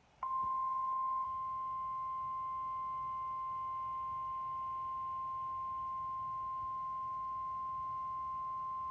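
NOAA Weather Radio 1050 Hz warning alarm tone: one steady, unwavering high beep about nine seconds long, a little louder in its first second, then cut off sharply. It is the alert signal that an emergency message is about to be read.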